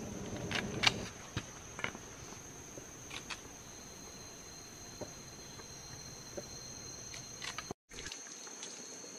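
Steady high-pitched whine of forest insects, with a second, lower insect tone joining a few seconds in. Scattered sharp clicks and knocks sound over it, loudest in the first second or so.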